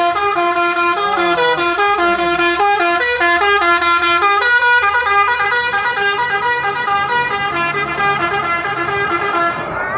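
Multi-tone telolet horn on a heavy vehicle playing a quick tune of stepped, held notes for nearly ten seconds, cutting off near the end, over a faint engine hum.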